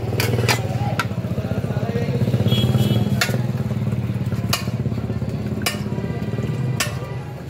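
A long metal ladle scooping nihari from a large steel pot, knocking and clinking against the pot's rim about six times, over a steady low mechanical hum.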